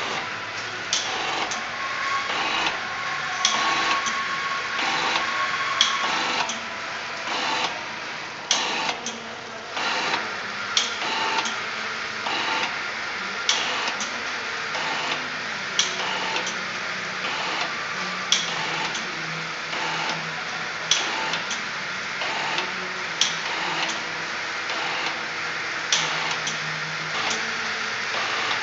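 Auger filler pouch packing machine running, a steady mechanical whirr with sharp clicks and knocks repeating about once a second as it cycles.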